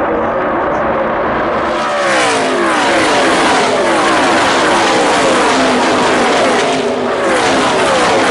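NASCAR Camping World Truck Series trucks' V8 engines racing past in a pack. A distant engine drone gives way, about two seconds in, to a loud blare of many engine notes, each dropping in pitch as its truck goes by.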